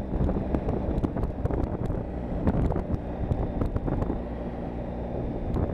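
Wind buffeting a helmet-mounted Drift Ghost S action camera's microphone on a moving motorcycle at steady road speed, over the low, steady drone of the bike's engine and tyres.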